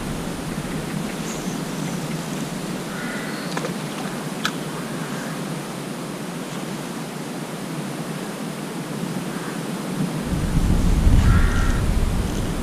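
Steady wind noise on the microphone, turning into a deeper buffeting rumble from a gust about ten seconds in. A single sharp click about four and a half seconds in, and faint brief calls in the distance.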